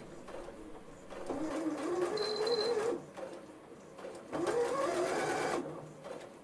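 Janome 5270 QDC computerised sewing machine stitching in two short runs of about a second and a half each, its motor hum rising in pitch as it speeds up.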